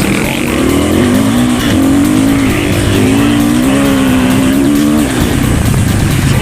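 Dirt bike engine running, its pitch rising and falling as the rider works the throttle.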